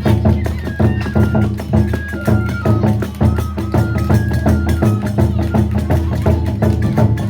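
Kagura accompaniment music: a bamboo flute playing a melody in held notes over fast, steady drum and hand-cymbal strokes.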